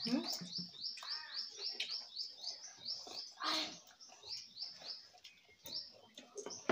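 A small bird chirping over and over, a fast series of short rising chirps about four a second that stops about two-thirds of the way through, with scattered soft clicks and one louder brief noise about three and a half seconds in.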